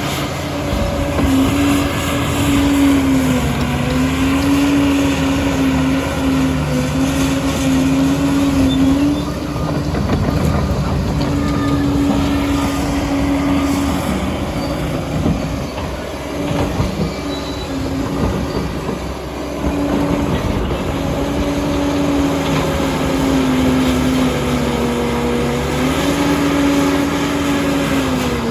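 Liebherr PR 746 crawler dozer working: its diesel drive runs with a steady pitched drone that dips and rises as the load changes, over the clatter and squeal of steel tracks. For a stretch in the middle the drone fades and the track clatter is loudest.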